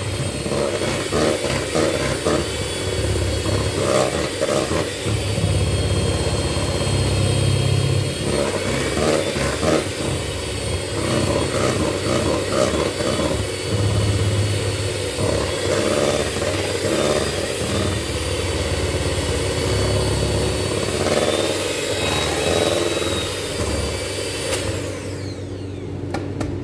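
Kenwood electric hand mixer running steadily, its beaters whirring through cake batter in a stainless steel bowl. The motor winds down near the end.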